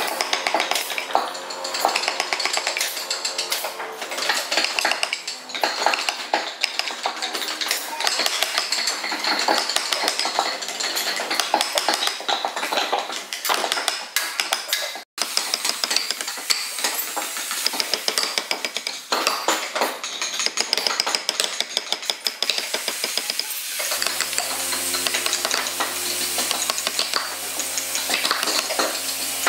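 Wooden mallet tapping a wood-carving chisel into hardwood, cutting detail into a carved panel: rapid, light, repeated taps that continue steadily.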